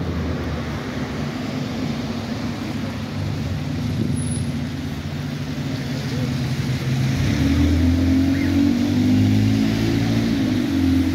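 Diesel engine of an Alexander Dennis Enviro200 single-deck bus running close by, growing louder and revving up about seven seconds in as the bus pulls away and comes past.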